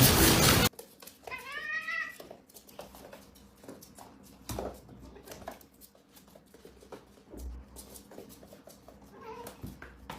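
A loud burst of noise cuts off just under a second in. Then a cat meows once, its pitch rising and falling, followed by a few faint knocks and a fainter call near the end.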